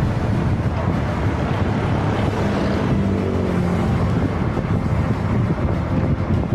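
Steady wind noise buffeting the microphone of a road bike riding downhill, with road rumble beneath. A faint engine hum from traffic comes in about two seconds in and fades a couple of seconds later.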